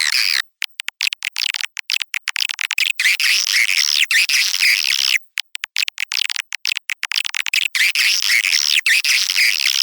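Edited edible-nest swiftlet lure recording: dense, high chattering swiftlet twitters with no low end, cut by many abrupt gaps and a short silent break about five seconds in.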